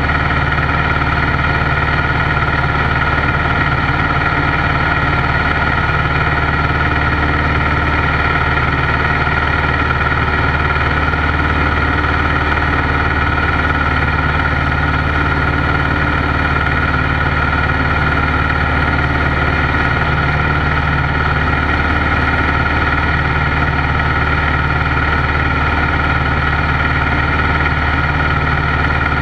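Piper PA-12 Super Cruiser's piston engine and propeller running steadily in flight, heard from inside the cabin as an even drone that holds the same pitch and level throughout.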